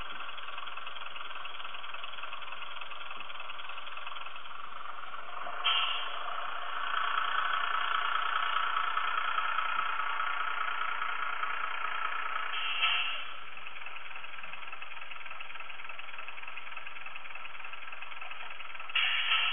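Model Class 108 DMU's sound decoder playing a diesel railcar engine through its small speaker. The engine runs steadily, louder from about six seconds in until about thirteen seconds. A brief sharper sound marks each change, and another comes near the end.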